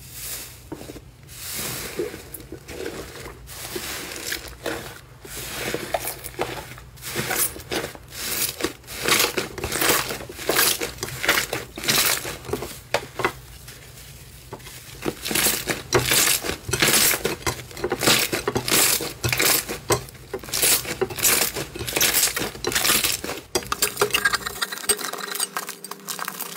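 Hands pressing, pulling and squishing a thick, air-filled grey slime, giving dense, irregular crackling and popping clicks. The clicks grow louder and thicker from about halfway through.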